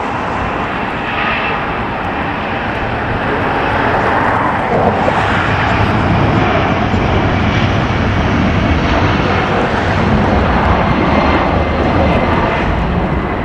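Airliner jet engines roaring during takeoff. The sound swells about four seconds in and holds loud until near the end.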